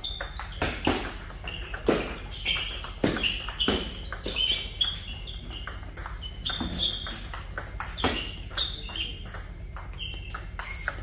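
Table tennis rally: the celluloid-type ball clicks sharply off the rubber-faced paddles and bounces on the table, many quick ticks in uneven clusters with short gaps between points.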